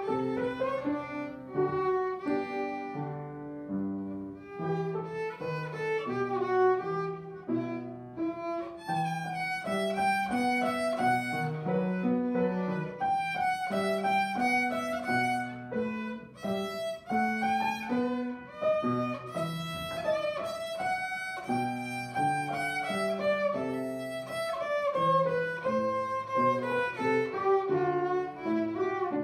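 A child playing a melody on the violin, accompanied on a grand piano.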